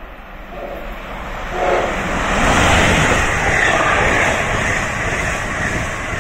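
A MARC express passenger train passing close by at over 100 mph: the rush builds sharply about two seconds in as the Siemens Charger locomotive goes by, then holds as a steady loud rush of the bilevel coaches running past.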